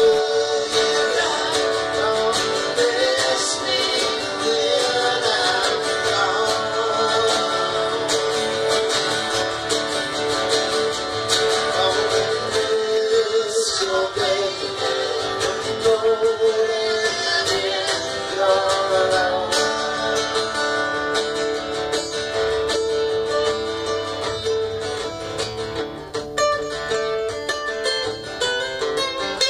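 Several acoustic guitars playing live together in a folk-rock jam, strummed and picked continuously.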